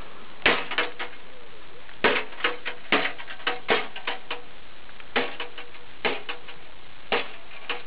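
Repeated sharp knocks as an RWL-34 steel knife blade is driven down through the rim of a thin, rusty steel bucket, many of them leaving a short metallic ring. The strikes come unevenly, about two a second in clusters with short gaps.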